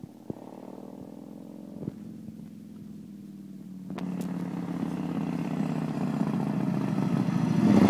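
Yamaha Road Star XV1600 cruiser's air-cooled V-twin engine running as the motorcycle approaches, growing steadily louder from about four seconds in as it draws near.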